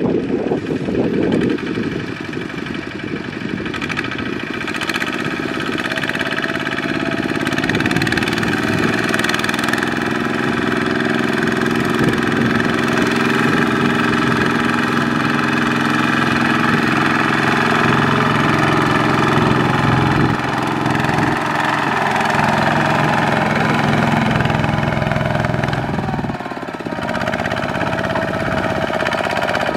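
Single-cylinder diesel engine of a Kubota RT140 walking tractor (power tiller) running steadily under load as it hauls a rice-laden trailer through mud. There is a brief drop and change in the engine note near the end.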